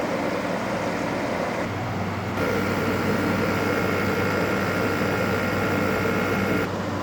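LG window air conditioner running steadily, a fan whir over a low hum, with no rattle. About two and a half seconds in a high steady whine joins, then stops abruptly near the end.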